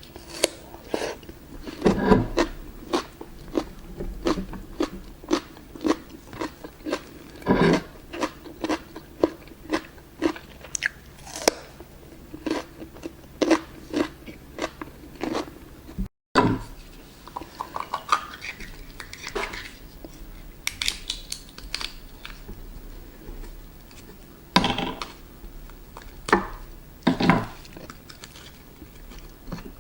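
Close-miked eating of raw oysters: irregular chewing, biting and crunching mouth sounds, dense in the first half and sparser after a brief break about halfway.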